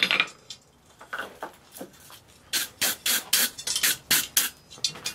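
A single hammer blow on the hot steel on the anvil at the start. About two and a half seconds in comes a quick run of scraping strokes, about four a second, as a wire brush scrubs forge scale off the hot bottle opener.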